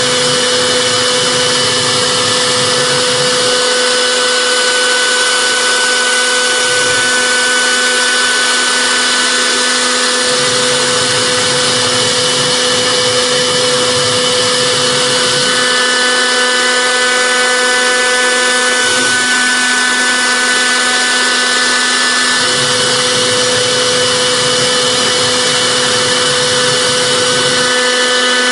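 CNC router spindle running at high speed with a steady whine while its cutter engraves a brass plate, a dense hiss of metal cutting over it. A lower hum comes and goes every few seconds.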